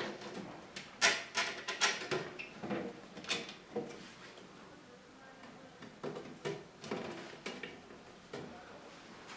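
Wood-grain flat-pack cabinet panels being handled and slid into place by hand: a string of light knocks and clatters of board against board, loudest about a second in and again around six seconds in.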